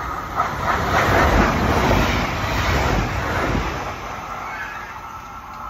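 A passenger train passing by, its rumble and rushing noise swelling over the first second, loudest around two seconds in, then fading away.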